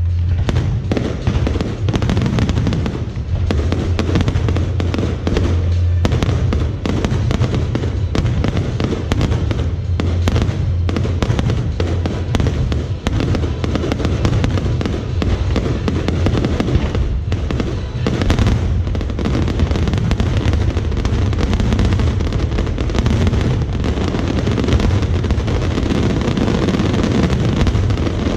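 Fireworks display going off: a dense, continuous run of bangs and crackles over background music.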